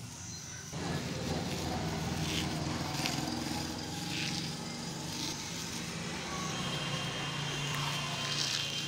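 A motor hums steadily from under a second in, with short faint crackles as fine steel shavings are crumbled and rubbed in a hand.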